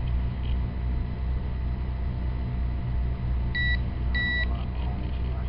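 Two short electronic beeps from a Kyocera 2135 cell phone, just over half a second apart, about three and a half seconds in. They are heard over a steady low rumble.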